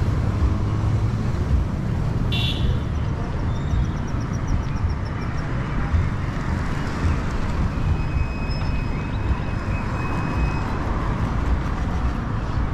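Street noise: a steady rumble of road traffic and motorcycles with a heavy low rumble, and a short hiss about two seconds in.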